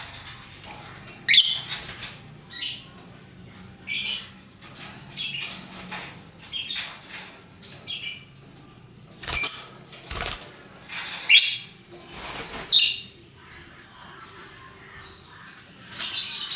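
Lovebirds giving short, shrill chirps and squawks, one after another at irregular intervals, a few of them louder.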